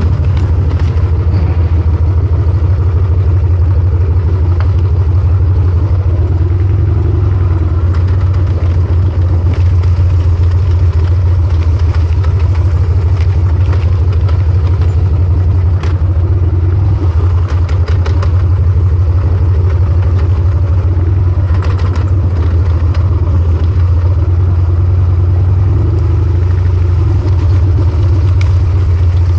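1998 Harley-Davidson Sportster XL1200C's 1200 cc air-cooled V-twin running loud through a short open exhaust pipe, held at a steady, even pace while the bike is ridden along a trail.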